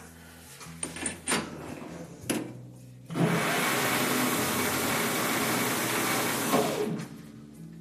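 Benchtop metal lathe switched on about three seconds in, its motor and spindle running steadily as a pen blank in the chuck is drilled from the tailstock, then switched off and winding down near the end. A few sharp clicks of handling the machine come first.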